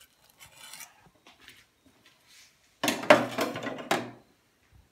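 Kitchen handling sounds: a few faint scrapes, then about a second of louder knocks and clatter of utensils or cookware a little under three seconds in.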